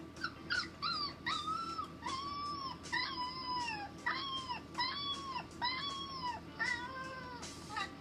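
Puppies howling, played back from a video: a run of about eight short howls, each rising and falling in pitch, roughly one a second.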